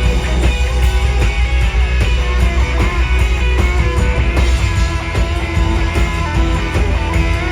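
Live rock and roll band with an electric guitar solo over drums and bass, played at a steady beat.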